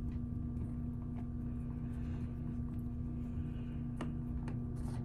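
Faint scraping and a few light clicks of a small screwdriver working a screw out of a laptop's case, over a steady low electrical hum.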